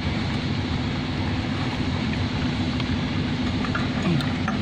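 Steady drone of a boat engine running, with a few faint metallic clinks from the rusty fender chain being handled near the end.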